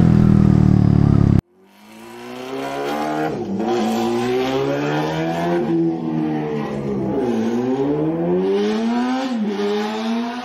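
A motorcycle engine running steadily cuts off abruptly about a second in. Then a vehicle engine fades in and accelerates up through the gears: its pitch climbs and drops sharply at each shift, about four times, before it fades out.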